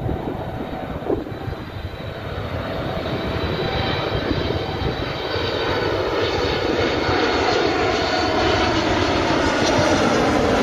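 Boeing 747-8 freighter's four GEnx-2B turbofan engines on final approach with gear down, a jet rumble that grows steadily louder as the aircraft nears. Faint whining tones come in about halfway through.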